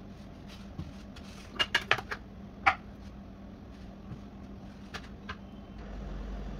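Light clicks and taps of aluminium baking trays being handled on a stone counter: a cluster of four or five sharp taps about two seconds in, ending in one louder knock, and two softer taps near five seconds, over a low steady hum.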